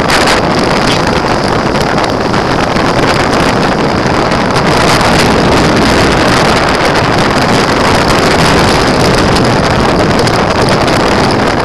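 Steady rushing rumble of a wheeled dryland mushing rig rolling fast over wet tarmac behind a running dog team, with wind buffeting the microphone.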